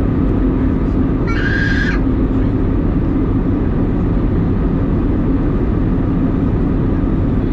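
Steady cabin noise of an Airbus A320 in flight: a loud, even rush with a steady low hum under it. About a second in, a brief high-pitched sound lasts under a second.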